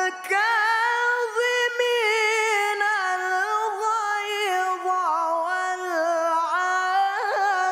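A young man's voice reciting the Quran in melodic tilawah style, singing the words 'wal-kāẓimīn al-ghayẓ'. One high vocal line is drawn out in long held notes that waver and turn, with a quick trill near the end.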